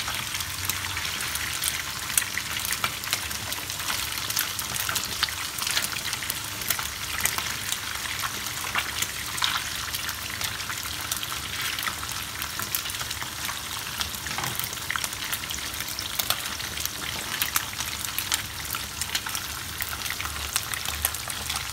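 Pomfret steaks shallow-frying in hot oil in a nonstick pan: a steady crackling sizzle with many small pops.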